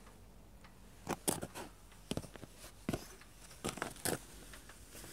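Footsteps crunching on icy, gravelly snow: a string of short, uneven crunches as someone walks along.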